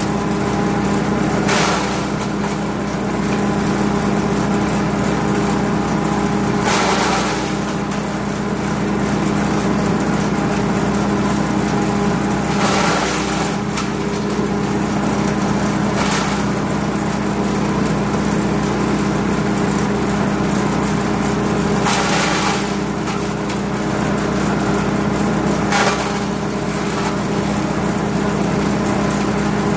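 Grass chopper machine driven by a 5.5 HP petrol engine, running steadily, with about six short bursts of noise spaced a few seconds apart as forage is fed through its blades.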